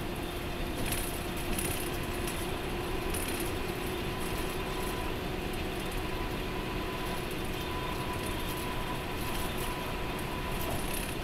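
Steady engine and road noise heard inside an express coach cruising at highway speed, with light rattles and clinks from the cabin now and then.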